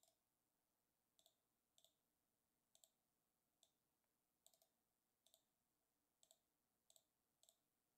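Faint computer mouse clicks, about ten spaced irregularly, each a quick double tick of button press and release.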